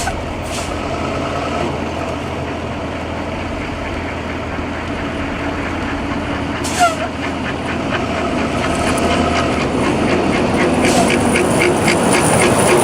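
A motor vehicle's engine running steadily, growing louder in the second half, with a rapid, regular ticking over the last few seconds.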